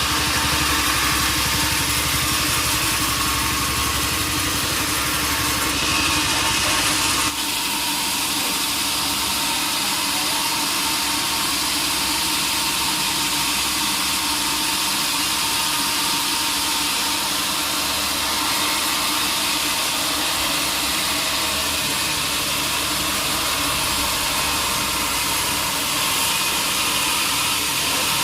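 Sawmill machinery running steadily with a loud, even hiss over a low engine-like hum; about seven seconds in, the low rumble drops away abruptly.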